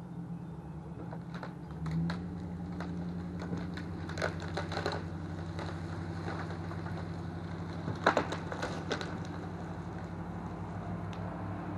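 An engine running steadily at low speed, with several clusters of sharp cracking and snapping, like broken wood being handled, about two, four and eight seconds in; the cracks near eight seconds are the loudest.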